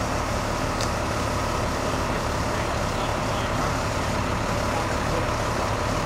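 Fire engine's diesel engine idling steadily with a low constant hum. A brief high squeak about a second in.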